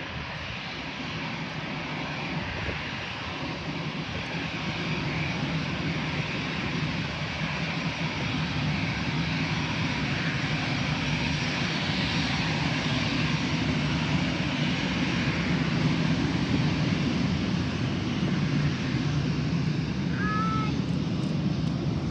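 Airbus A320 jet airliner flying past low near the airport. The engine roar builds steadily over the first half and then holds loud and steady.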